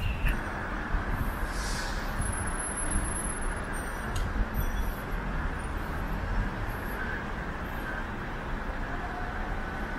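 City street traffic: motor vehicles running past in a steady rumble, with a constant high whine over it and a short hiss about two seconds in.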